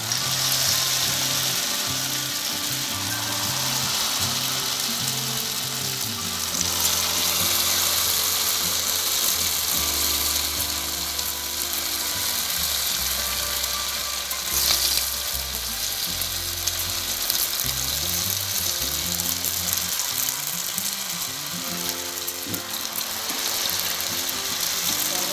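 Batter-coated boneless chicken pieces deep-frying in hot refined oil in a pan: a loud, steady sizzle and crackle as more pieces are dropped in. It cuts off suddenly at the end.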